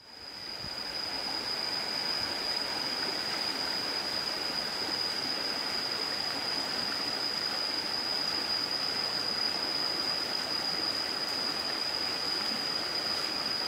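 Steady rush of water from a rocky forest stream with small cascades, fading in over the first couple of seconds. A steady high-pitched whine runs over it throughout.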